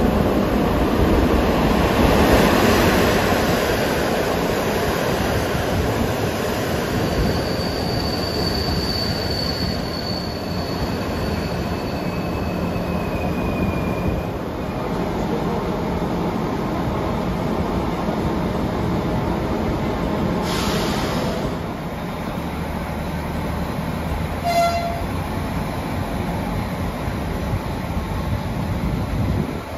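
PESA Link diesel railcar slowing into a station, heard from inside: rumble of the running gear, with two brief high-pitched squeals of the wheels or brakes about a third of the way in. A short hiss comes about two-thirds in, followed soon after by a brief beep.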